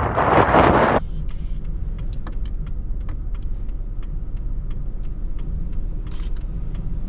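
Loud rushing wind noise that cuts off abruptly about a second in. It gives way to a car's steady low rumble in a blizzard, with faint scattered ticks.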